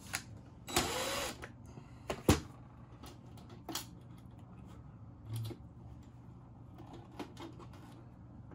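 A cordless drill runs briefly, about a second in, backing out a screw, followed by a sharp knock a second later and lighter clicks and rustling as wires and crimp connectors are worked into a terminal block on a metal panel. A low steady hum runs underneath.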